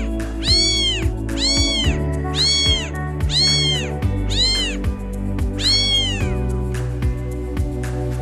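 A cat meowing about seven times in a regular series, each meow rising and then falling in pitch, over background music with a steady beat; the meows stop about six seconds in while the music goes on.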